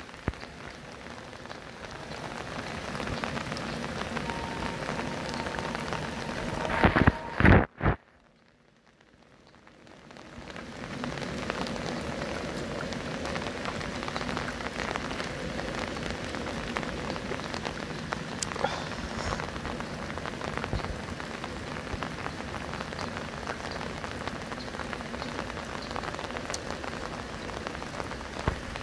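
Rain falling steadily on river water, with a few loud knocks about seven seconds in. The sound then drops nearly out for about two seconds before the rain comes back.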